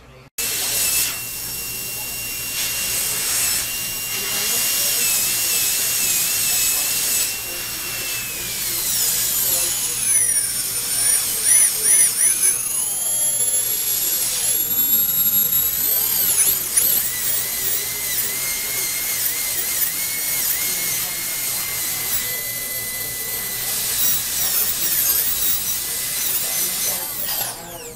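Dental drill handpiece whining at a high pitch as its bur grinds and trims a tooth-coloured temporary bridge held in the fingers. The pitch dips and wavers repeatedly as the bur bites into the material and rises again as it eases off, and the whine cuts off near the end.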